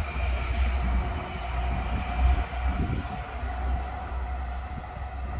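Distant steam locomotive and railway yard noise, a steady sound with a faint held tone, under wind rumbling on the microphone.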